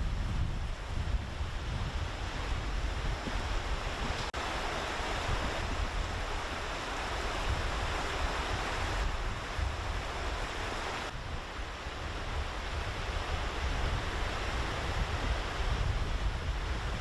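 Swollen, fast-flowing river in flood, a steady rush of water, with wind buffeting the microphone as a low rumble. The sound shifts abruptly twice, about four and eleven seconds in.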